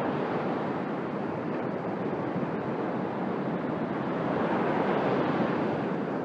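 Steady wash of sea surf breaking on a sandy beach, mixed with wind noise on the microphone, swelling a little about five seconds in.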